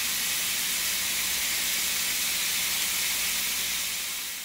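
Two bone-in steaks sizzling on a hot square stovetop grill pan: a steady frying hiss that fades out near the end.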